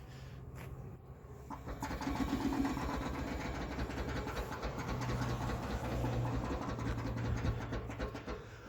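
Detroit locker in a Land Rover axle ratcheting as it disengages while the raised wheel is turned: a rapid run of mechanical clicks from the locker's teeth slipping over each other, starting about a second and a half in.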